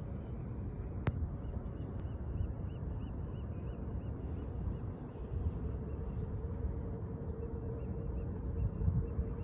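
Watersnake trolling motor pushing the kayak along, with a low steady rumble and a steady whine that comes in about halfway through. A single click about a second in, and a faint rapid squeaking, about four squeaks a second, for a few seconds and again near the end.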